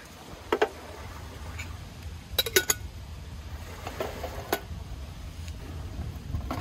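Stainless steel camp cookware and a metal gas canister clinking and knocking as they are handled and set down in a metal lunch box. A few sharp clinks, a loud cluster about two and a half seconds in, then two more a second or two later.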